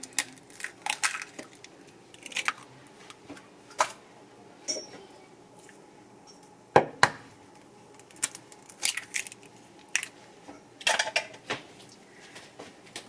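Irregular sharp knocks and clinks of kitchen dishes and utensils as eggs are readied in a bowl for an egg wash, the loudest pair of knocks about seven seconds in.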